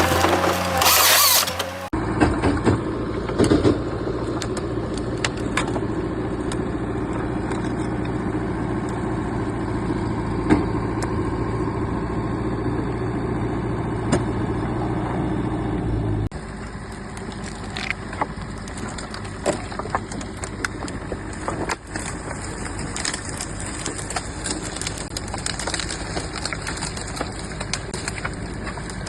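Heavy forestry machine's engine running steadily, with scattered knocks and clicks. A loud noisy burst fills the first two seconds. About 16 seconds in, the sound changes abruptly to a quieter machine running.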